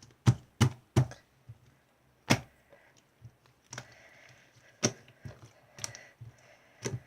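Irregular sharp taps and clicks on a hard surface, several strong ones in the first two and a half seconds and then lighter, scattered ones.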